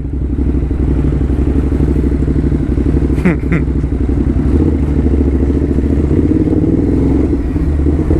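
Ducati motorcycle engine running steadily at low revs with a deep, rapidly pulsing rumble, heard from the rider's seat in slow city traffic. A brief high chirp comes about three seconds in.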